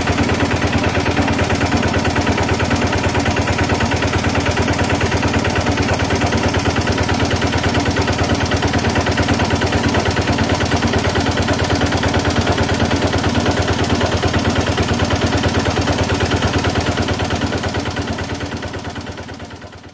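Generator engine running steadily at constant speed, with an even, rapid firing beat; it fades away over the last three seconds.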